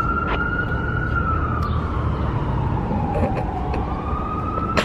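Emergency vehicle siren sounding a slow wail, its pitch falling and rising again over about four seconds, over a low rumble.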